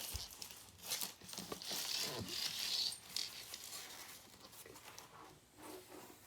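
Rustling and scattered light clicks of hands rummaging among parts and the work surface, searching for a dropped small screw, with a louder patch of rustling about two seconds in.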